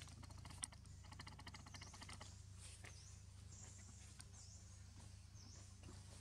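Faint outdoor ambience: a high, short chirp repeats about once a second over a low steady hum, with a quick run of faint clicks in the first two seconds.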